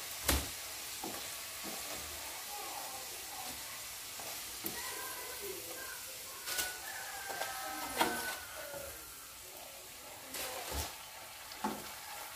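Glutinous rice dough twists (pinilipit) deep-frying in hot oil in a wok, a steady sizzle. Metal tongs click against the pan several times as the pieces are lifted out.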